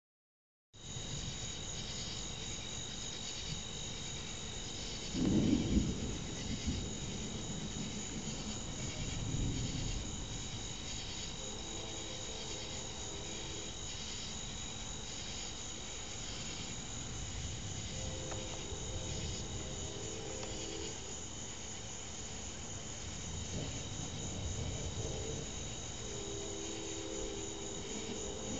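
Chorus of crickets and other insects, a steady pulsing trill, with a low rumble of distant thunder about five seconds in.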